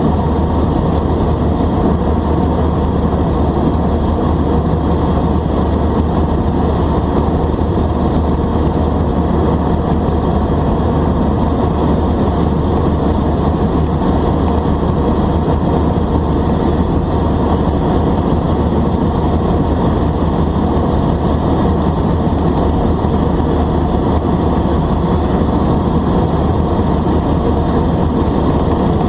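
Steady cabin drone of an Airbus A320 in climb, heard inside the cabin by the wing: the CFM56 turbofan engines' low hum under the rush of airflow, unchanging throughout.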